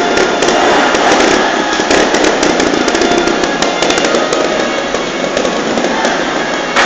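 Trials motorcycle engine revving hard in uneven blips, with many sharp pops and crackles, while the bike climbs over rocks.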